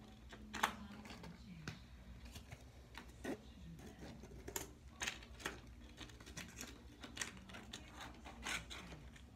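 Irregular light clicks and taps, as of hermit crab shells and fingers knocking against plastic while a crab is picked out of its enclosure. The sharpest tap comes about half a second in.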